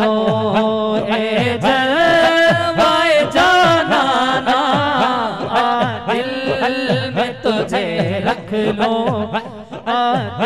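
Male voices singing a naat through a PA, a held melody wavering over a steady drone, with a low beat repeating under it.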